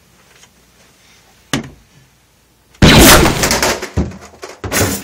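A single sharp knock about a second and a half in, then a loud crash lasting about a second, and a second shorter crash near the end: a door being struck and broken through.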